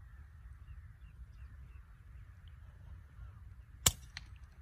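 Artemis P15 PCP air rifle firing a single sharp shot near the end, followed a moment later by a fainter crack. Under it run a steady low rumble and faint bird chirps.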